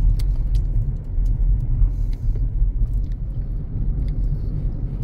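Steady low road and engine rumble inside the cabin of a Mitsubishi car driving on a snow-covered road, with faint scattered ticks.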